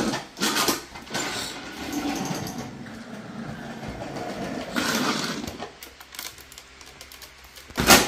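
Small battery motor of a toy upright vacuum cleaner whirring steadily as it is pushed across a wooden floor, stopping about two-thirds of the way through. A sharp knock comes near the end.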